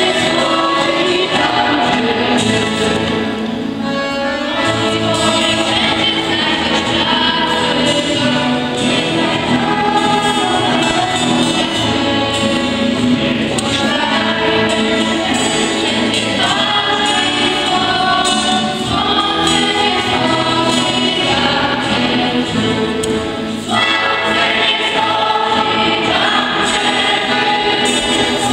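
A group of children singing a song together into microphones, with guitar accompaniment.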